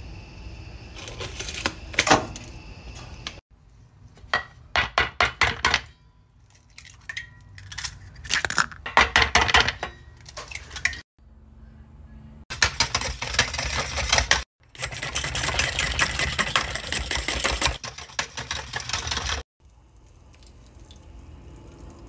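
Kitchen cooking sounds in short segments that cut off abruptly. There are quick runs of sharp taps and clicks of utensils, then several seconds of steady sizzling from frying in a pan.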